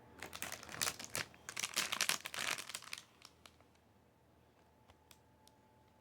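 Packaging crinkling and rustling as it is handled for about three seconds, followed by a few light clicks.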